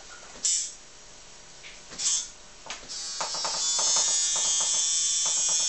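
Hildbrandt .30 Carbine tattoo machine buzzing, running unloaded (no needle) on its power supply. Two brief buzzes come first, then about three seconds in it starts running steadily and loudly.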